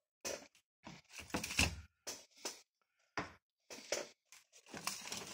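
Irregular short knocks, clicks and rustles of a power cable and wires being handled on a workbench, in scattered bursts with brief silences between.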